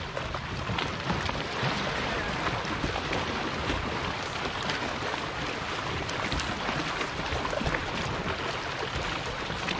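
Water lapping and splashing against sandstone rocks and around the kayaks, with paddle blades dipping in the water, heard as a steady wash dotted with many small splashes.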